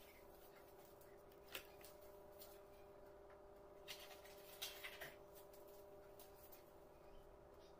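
Near silence: faint room tone with a steady low hum and a few soft clicks, the clearest about a second and a half in and a cluster between four and five seconds in.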